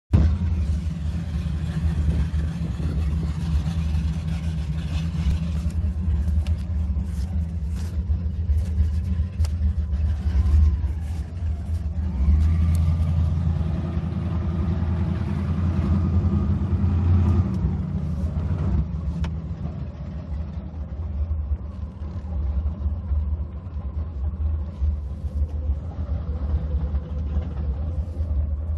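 Fountain Lightning powerboat's engines running with a steady deep rumble, revving up about twelve seconds in and easing back down after about eighteen seconds.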